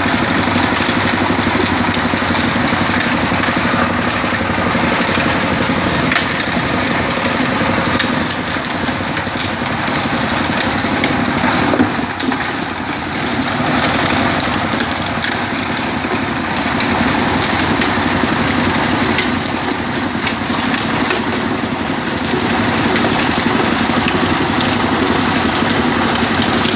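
Rock crusher running steadily, grinding stone into fine sand: a constant motor noise mixed with a gritty rattle, with a few sharp knocks from stones along the way.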